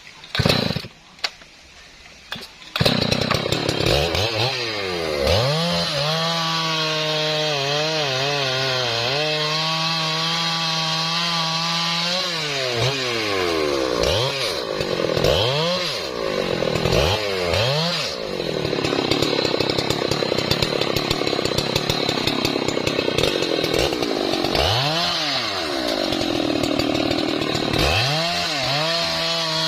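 A few knocks, then the big two-stroke engine of a Husqvarna 3120 XP chainsaw comes in about three seconds in and runs loud. Its pitch sags and recovers again and again as the chain bites into a trembesi log.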